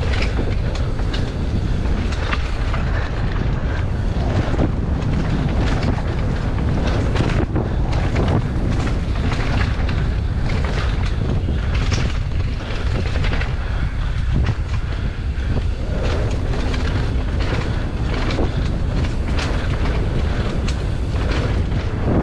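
Downhill mountain bike on a dirt trail: a steady rumble of wind on the microphone with tyres running over the dirt and the bike rattling and clattering over the bumps in many quick knocks.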